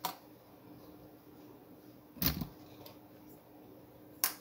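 Handling noise from an oscilloscope probe and test leads being set down and moved: a click at the start, a louder thump about halfway through and a sharp click near the end, over a faint steady hum.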